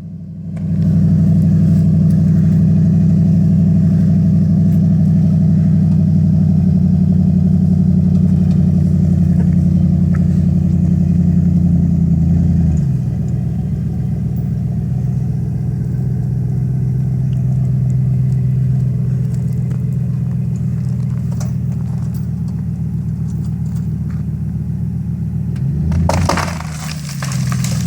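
Dodge Ram 1500's Hemi V8 engine running steadily under load as the truck pulls on a chain; about halfway through the engine note drops to a lower steady pitch. Near the end a brief burst of noise breaks in while the engine note dips and rises again.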